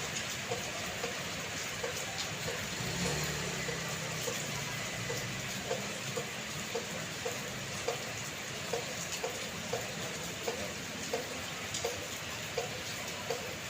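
Steady rain falling, with drops plinking at an even beat of about two a second.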